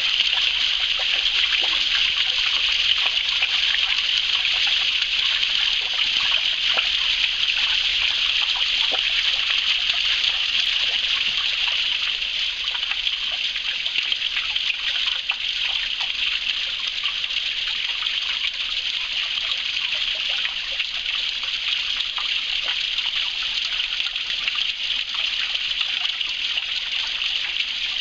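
Small stream running over stones: a steady rush of flowing water with light trickling and small splashes.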